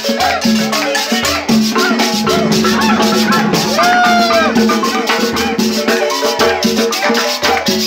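Loud Latin dance music with a metal scraper keeping a quick, steady scraping beat over bass and melody, with party voices mixed in.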